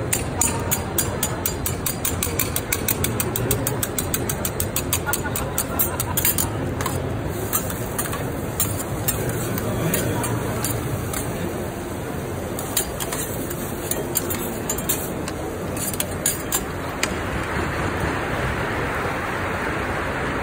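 Metal spatulas clicking rapidly against a steel teppanyaki griddle, several sharp clicks a second for the first several seconds, then only now and then. From about three-quarters of the way in, food starts to sizzle on the hot plate.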